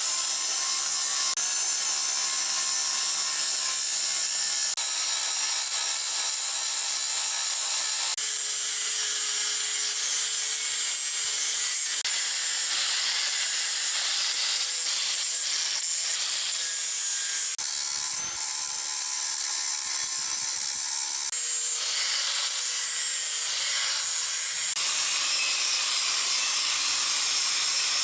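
Angle grinder running steadily under load, grinding down welds and rounding off corners on a steel angle-iron frame.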